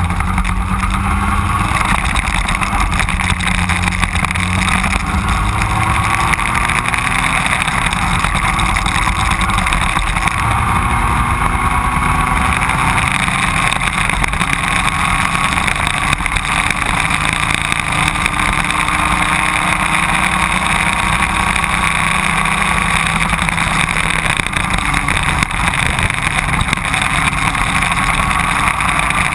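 Racing kart engine running hard at race pace, its pitch slowly rising and falling as the kart speeds up and slows through the corners.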